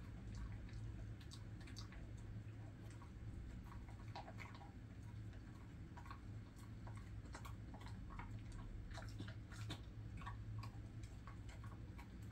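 Jindo mix dog chewing a small hard treat: faint, irregular crunching clicks, thickest in the middle stretch, over a steady low hum.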